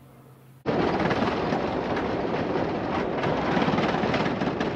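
Off-road vehicle driving fast on a gravel dirt road, heard from a camera mounted outside on its roof: a loud rush of wind and tyre noise that starts suddenly about half a second in. Before it there is only a faint low hum.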